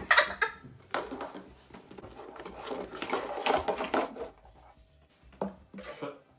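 Handling noises: a small plastic computer webcam and its cable being moved about and pulled out of a cardboard box, with irregular knocks, clatter and scraping, a short quiet gap about two-thirds of the way through, then a few single knocks.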